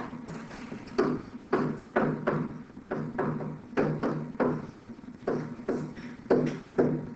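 A pen or stylus writing on a digital writing surface: a run of irregular short taps and scratchy strokes, over a low steady hum.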